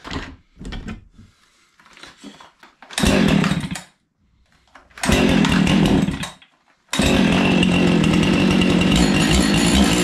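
Gas chainsaw being started. It runs up for about a second twice and dies each time, then catches about seven seconds in and keeps running steadily.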